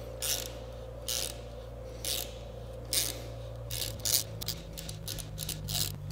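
Hand ratchet clicking as it drives a 5/8-11 tap into a head-stud hole in an aluminium engine block. A burst of clicks comes about once a second, then the clicks come closer together after about four seconds.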